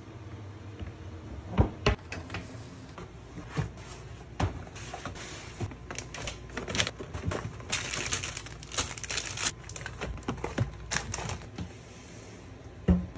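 Groceries being handled in a pull-out pantry: scattered clicks and knocks of packets and boxes against chrome wire baskets, and plastic snack packaging crinkling, with a sharp knock about a second and a half in.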